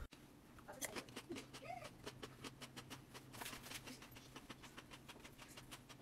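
Faint clicking mouth sounds of someone chewing with her mouth closed, over a low steady hum. There is one short, rising murmur from her throat a little under two seconds in.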